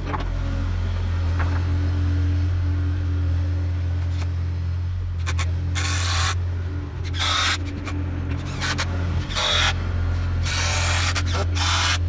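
Excavator's diesel engine running steadily, with gravel being scraped in short strokes from about halfway through, roughly one every second, as crushed-stone fill is levelled.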